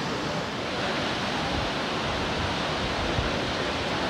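Waterfall: a steady, even rush of water falling down a cliff.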